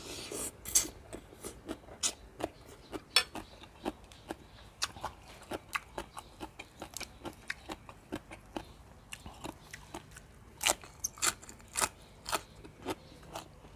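Chewing a mouthful of crunchy green papaya salad: irregular wet crunches and mouth clicks, a few a second, with louder crunches near the end.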